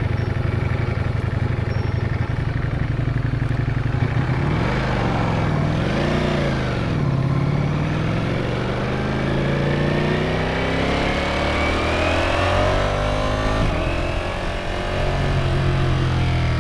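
Ducati Streetfighter V4S's V4 engine running at low revs, then revved up and down twice about five seconds in. It then pulls in a long rising rev as the bike accelerates, drops off about fourteen seconds in, and settles back to a steady low note.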